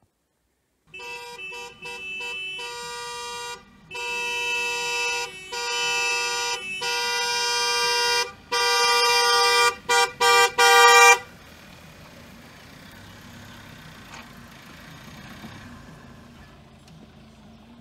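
Car horn honking in a string of short toots and long blasts, two notes sounding together. It stops suddenly about eleven seconds in, leaving a low steady background hum.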